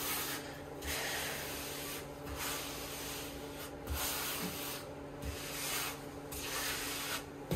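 Rubber grout float scraping wet flexible grout across floor tiles, pushing it into the joints in repeated swishing strokes, one about every second or so.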